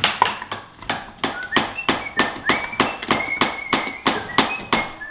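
Rapid, even hammer blows on wood-working work, about four a second, with a faint metallic ring after some of the strikes.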